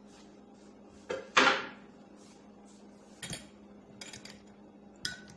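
Kitchenware clattering: one loud clatter with a ringing tail about a second and a half in, then a few short clinks of a metal spoon and fork against a glass salad bowl as the salad is tossed.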